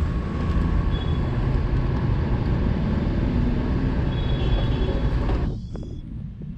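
Steady machine noise with a low hum, like a motor or engine running, that cuts off abruptly about five and a half seconds in, followed by a few faint knocks.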